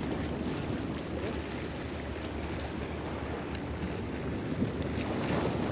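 Steady rush of wind and seawater washing against jetty rocks.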